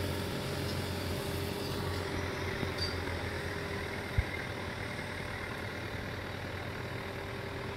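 Kubota farm tractor's diesel engine idling steadily, with a single short thump about four seconds in.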